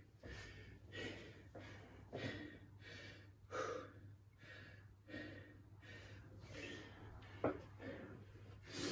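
A man breathing hard and fast while he recovers from high-intensity exercise, one short breath following another at more than one a second. There is a single sharp click about seven and a half seconds in.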